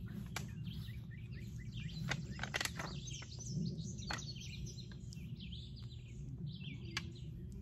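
Small birds chirping and twittering over a low outdoor rumble, broken by a few sharp clicks and rustles as long-bean vines are handled and picked, the loudest cluster about two and a half seconds in.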